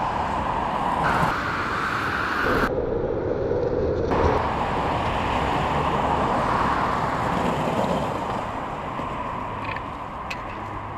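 Steady road-traffic noise, a continuous rush that changes abruptly a few times in the first four seconds.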